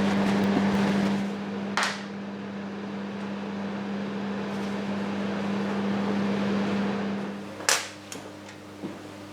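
A steady machine hum with hiss that dies away about three-quarters of the way through, with two sharp clicks, one about two seconds in and a louder one just as the hum fades.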